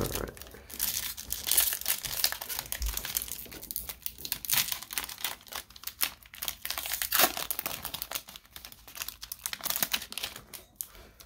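Crimped wrapper of a 2021 Topps Update baseball card pack crinkling and tearing as it is pulled open by hand, with irregular crackles throughout.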